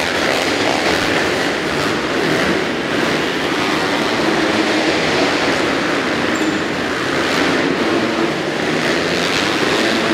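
Several motocross bikes racing around an indoor arenacross track, their engines revving and merging into one loud, steady drone inside the arena hall.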